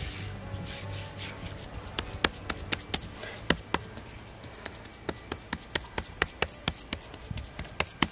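Bare hands patting and slapping wet mud onto the paper-covered mound of an earthen oven, with rubbing as it is smoothed. From about two seconds in there is a run of sharp slaps, about two to three a second.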